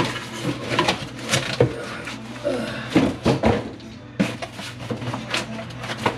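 KILMAT foil-faced butyl sound-deadening sheets being dumped out of a cardboard box and handled: an irregular run of sharp slaps and rustling knocks as the stiff sheets drop and hit each other and the box.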